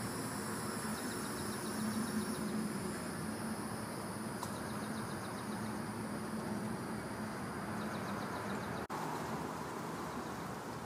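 Steady outdoor background rumble like distant road traffic, with insects calling in rapid high ticking trills near the start and again near the end. The sound drops out for an instant about nine seconds in.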